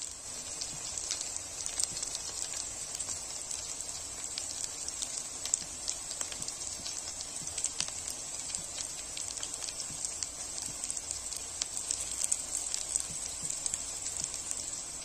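Chicken pakoras frying in hot oil in a wok, partway cooked: a steady sizzle scattered with many small crackling pops.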